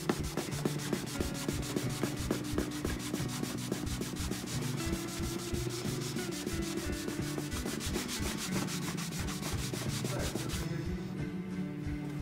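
A cloth rubbed quickly back and forth over an oil-finished wooden parquet floor, several scrubbing strokes a second, stopping shortly before the end.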